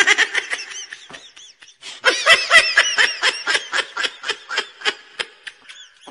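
High-pitched laughter: a short burst of giggles, then after a brief pause a longer run of quick giggles, about four a second, that trails off.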